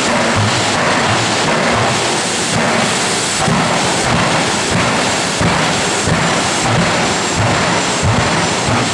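Jet dragsters' turbine engines running at the starting line: a loud, steady roar with a faint high whine above it.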